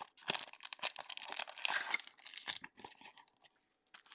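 Plastic wrapper of a trading-card pack being torn open and crinkled by hand. The crackling stops for about a second near the end.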